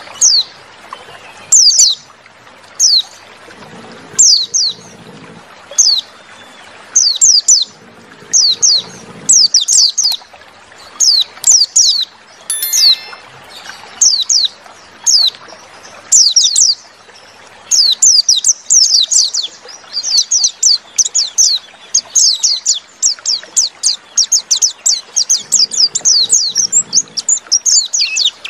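White-eye (pleci) song: quick, high, thin chirps that slide downward, coming in short spaced phrases at first and running into an almost unbroken chatter from about halfway on.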